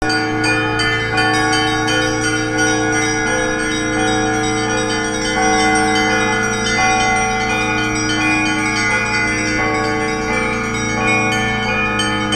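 Russian Orthodox church bells ringing together in a continuous peal. Many bells are struck over and over, while the low tones of the bigger bells hum steadily beneath.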